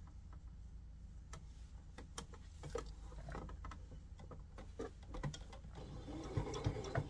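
Domestic electric sewing machine at work with fabric being handled: light clicks and rustles, then the machine stitching more steadily and louder near the end.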